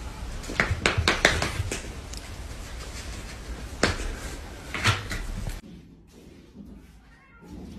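Sharp knocks and taps of a corgi's paws and a cat's swats against a wooden cabinet: a quick cluster about a second in, then two single knocks near four and five seconds. After that, only quiet room tone.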